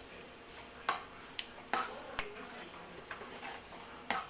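Metal ladle clicking against a kadai while simmering greens are stirred: about six sharp, irregularly spaced clicks.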